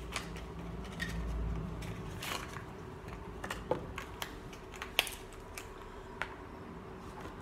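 Hands working a small black handheld object: scattered light clicks and taps with faint rustling, over a faint steady hum.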